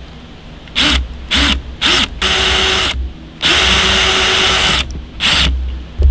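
Electric drill with a 1/16 inch bit drilling a hole through the side of a metal bottle cap, run in bursts. There are three quick blips to start the hole, then two longer runs as the bit bites through, then a last short blip.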